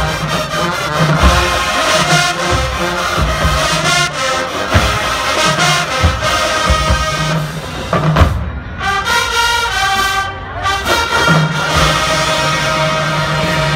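Marching band playing: loud brass chords over sharp drum hits. The horns thin out for a few seconds about eight seconds in, then come back in full.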